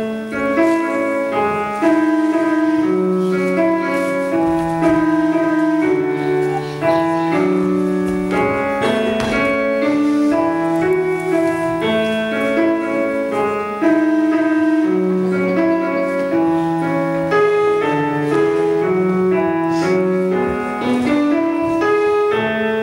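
Piano music starting up and playing a continuous run of notes.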